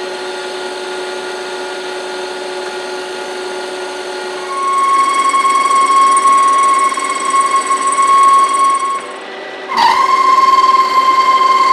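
Metal lathe running while a tool cuts a steel bushing, bringing in a steady high-pitched ring about four seconds in. The ring drops away briefly just before the end and comes back suddenly as the cut resumes.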